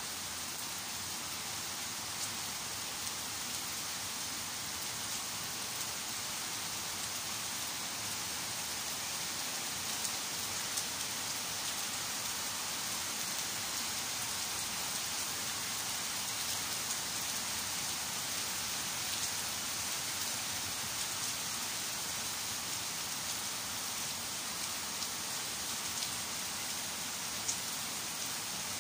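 Summer downpour falling steadily on tree leaves, grass and a paved path, with a few sharper drop hits now and then.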